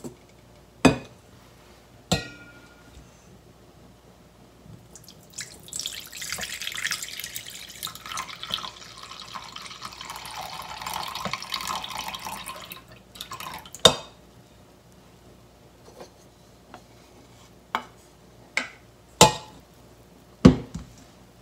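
Watery liquid poured from one stainless steel bowl into another for about eight seconds: the clear top water being drained off settled azuki bean paste. Sharp knocks and clinks of the metal bowls being handled come before and after, one bowl ringing briefly, with more knocks near the end as a wooden spatula is brought to the bowl.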